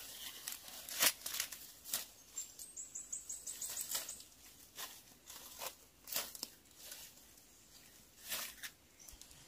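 Scattered light rustles and crackles, irregular and faint. About two and a half seconds in comes a brief quick run of high ticks.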